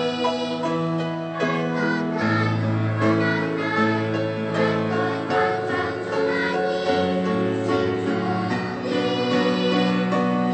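Children's choir singing a slow song in held, sustained notes over low accompaniment.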